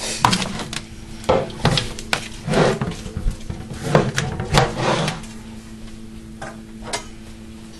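Metal cake tin and its lid being handled and opened on a plastic cutting board: a run of knocks, clacks and scrapes for about five seconds, then only a couple of light knocks.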